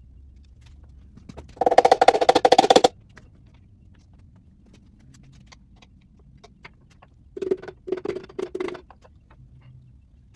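A rapid rattling run of sharp strikes for about a second, then four short ringing knocks near the end, from tools working on a 327 small-block V8 while its pistons are removed.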